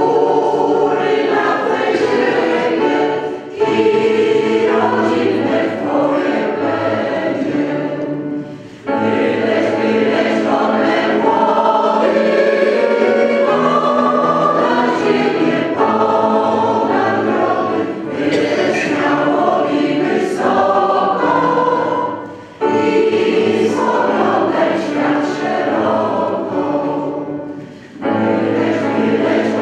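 Mixed choir of men's and women's voices singing, in long sustained phrases with brief breaks between them.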